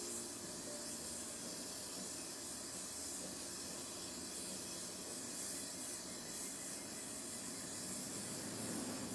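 Gas brazing torch flame hissing steadily while a steel seat lug is brazed to the tubes.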